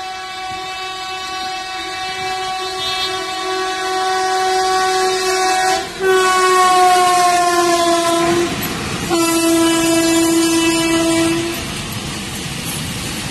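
Electric locomotive's air horn sounding as it approaches and passes: one long blast whose pitch sags slightly as the locomotive goes by about six seconds in, then a second blast of about two and a half seconds. After that comes the steady rush of coaches running past on the rails.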